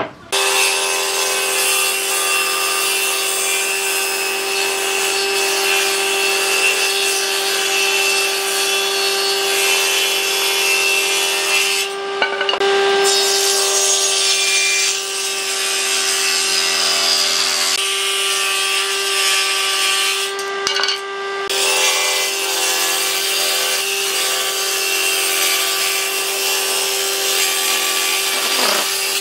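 Table saw running and cutting a groove along a wooden board: a steady high motor-and-blade hum under a dense cutting noise. The cutting noise breaks off briefly twice, and the hum falls away at the very end.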